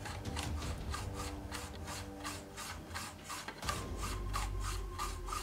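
Quick back-and-forth rubbing of a flat plastic plate rolling epoxy putty (green stuff) over a ridged plastic texture plate, about five scraping strokes a second.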